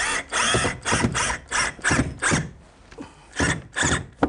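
Cordless drill/driver driving a screw into a wall cabinet, run in a series of short trigger bursts, with a pause about three seconds in before three more bursts.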